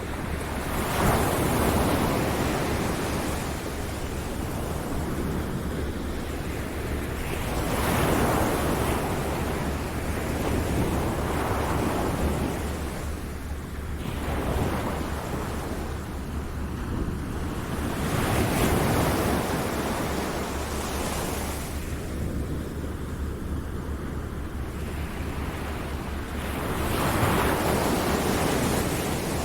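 Ocean surf breaking and washing in, the rush of water swelling and fading every several seconds, over a steady low tone.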